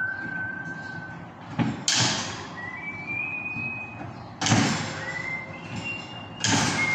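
Bolt cutters snapping through the steel bars of a round grill grating: three sharp snaps about two seconds apart. Each snap is followed by a thin high ringing tone lasting a second or so.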